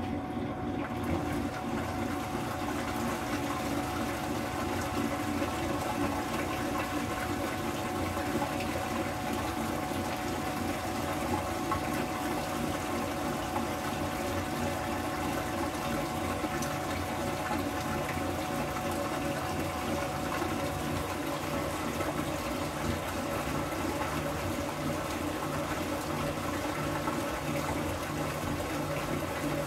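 KitchenAid Superba KAWS850LT1 top-load washer draining: the drain pump runs steadily with a faint whine while the wash water empties out of the tub.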